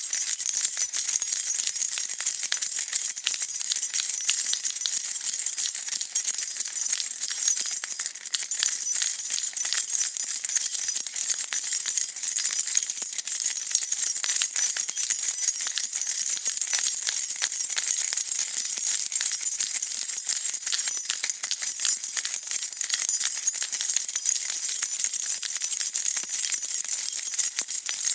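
A bunch of metal keys jingling and rattling continuously as they are shaken, a dense, unbroken stream of bright clinks.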